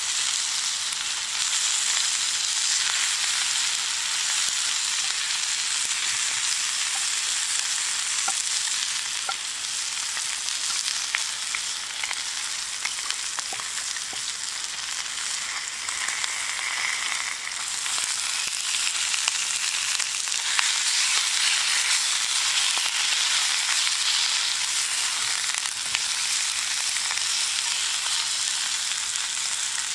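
Japanese Black wagyu steak, red bell pepper and asparagus sizzling steadily in a cast-iron skillet, with a few light clicks scattered through the sizzle.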